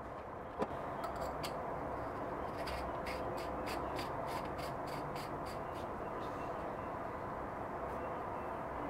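A sharp tap about half a second in, then a run of small ticking clicks, about three a second, as the metal-banded parts of a turned walnut cigar holder are twisted and screwed together by hand. The clicks die away after about six seconds, leaving a steady faint background hum.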